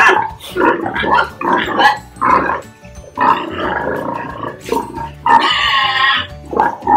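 Pigs grunting in short, irregular bursts during natural mating of a boar and sow, over background music; a longer, higher call comes about five seconds in.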